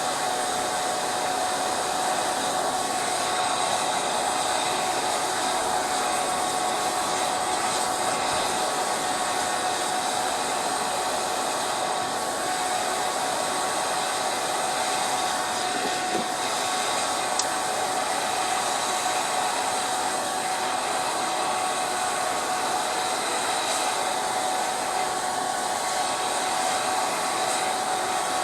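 Homemade blast furnace running: a steady rush of forced air through the fire, with a constant whine from the small motor of its air blower.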